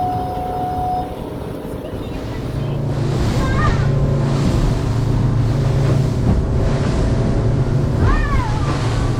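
Motorboat engine running steadily, its hum growing louder about two and a half seconds in, with wind and rushing water around the hull.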